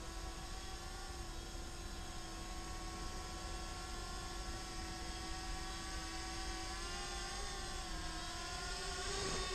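Small quadcopter drone descending to land on a low battery, its propellers giving a steady whine; the pitch wavers briefly a couple of times near the end.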